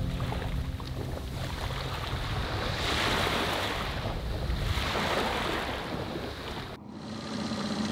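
Waves washing in swelling surges, with wind buffeting the microphone. The sound breaks off abruptly near the end and is replaced by a low steady hum.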